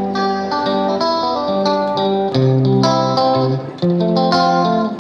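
Background music played on guitar, a melody of plucked notes changing every fraction of a second.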